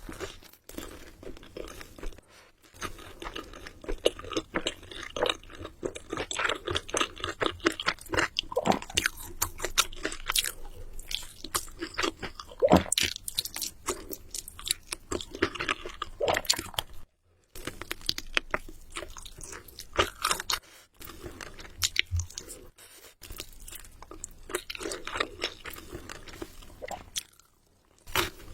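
Close-miked crunching and chewing of crunchy food: dense crackling bites, broken by a few short pauses.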